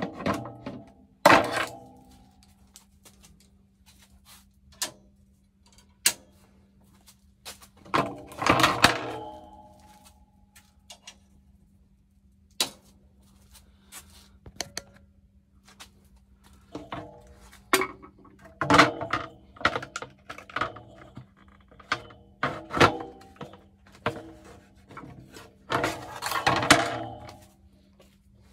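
Scattered knocks, clinks and thunks of hard objects being handled and set down, some in quick clusters, with a faint steady hum coming in about a second and a half in.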